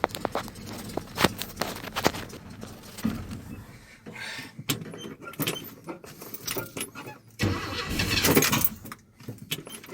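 Old Chevy pickup truck being started with difficulty: a scatter of clicks and knocks, then the engine turns over loudly for about a second and a half near the end before cutting off, without staying running.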